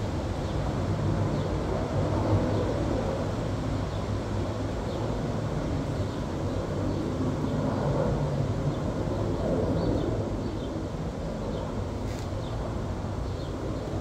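Steady low outdoor rumble, like distant traffic or aircraft, with faint short high chirps repeating about once a second.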